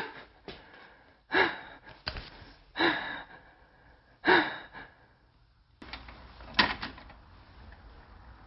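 A dog giving short, sharp yelping barks, three or four of them a second or so apart, followed by a single sharp knock about two-thirds of the way through.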